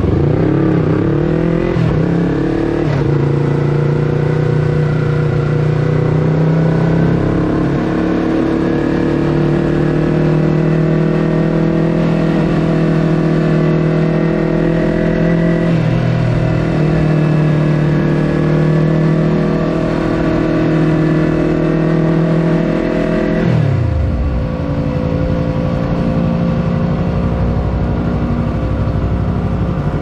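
Yamaha YZF-R3's parallel-twin engine through an Akrapovič full-system exhaust, heard on board while riding. It climbs in pitch through quick upshifts in the first few seconds, then holds a steady cruising note with a brief dip in pitch around the middle. A little after twenty seconds the pitch falls sharply as the throttle closes and the bike slows, settling on a lower steady note.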